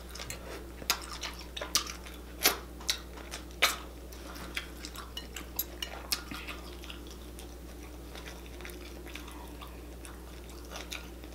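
Glass bowl being handled with ringed fingers: sharp clicks and clinks of rings, bangles and nails against the glass as the hands dig through saucy chicken and seafood, several strong ones in the first four seconds, then sparser and fainter.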